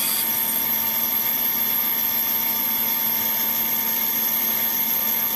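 Steady machine hum and whine from the harmonic drive actuator test rigs and their control electronics, holding several fixed pitches that stay the same while the arm moves. A short hiss ends right at the start.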